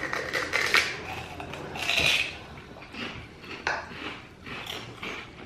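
Fried pork rind being bitten and chewed, with a run of crisp crackling crunches; the loudest crunch comes about two seconds in.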